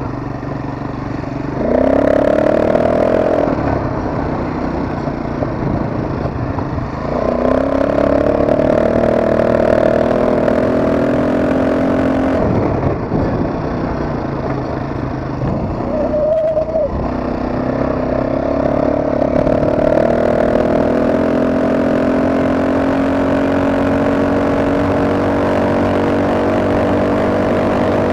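ATV engine running while riding, revving up three times, about 2, 7 and 17 seconds in, and holding steady revs in between.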